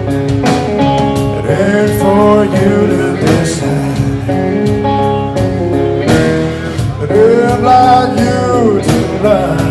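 Live blues music: guitar with a steady strummed rhythm, and melody notes that bend and slide up and down in pitch.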